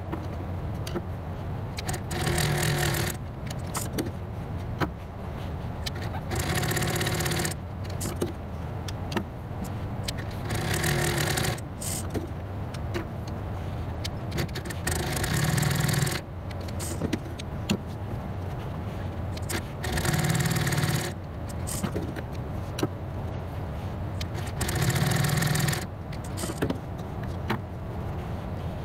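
Juki industrial sewing machine stitching foam-backed upholstery seat-insert panels in short runs of about a second, about six times, every four to five seconds. Between runs, the material is handled and repositioned, with clicks and rustling.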